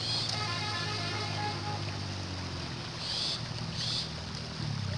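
Water splashing as a bamboo-poled lift net is dipped into shallow river water, with short splashes at the start, about three seconds in and just before four seconds. A steady low motor hum runs underneath.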